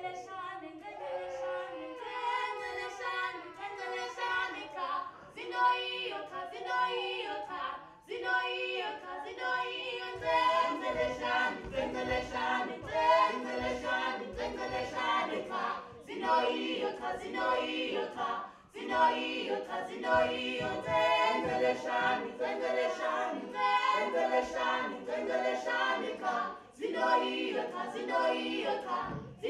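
Several performers singing together a cappella, unaccompanied voices in harmony, with the singing growing fuller from about ten seconds in.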